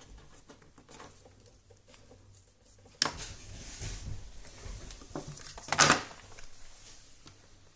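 Small handling noises on a desk while a network cable is reconnected to a computer: faint scattered clicks, a sharp click about three seconds in, and a louder, brief knock near six seconds.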